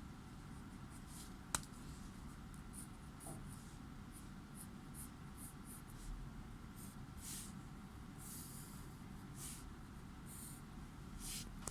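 Faint scratching of drawing strokes on paper, short and irregular, with one sharp click about a second and a half in.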